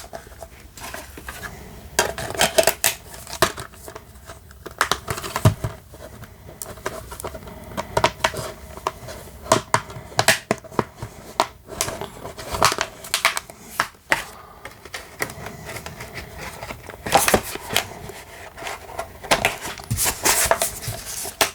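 Plastic DVD case and its hinged disc trays being handled, giving irregular clicks, taps and snaps, in clusters with short pauses between.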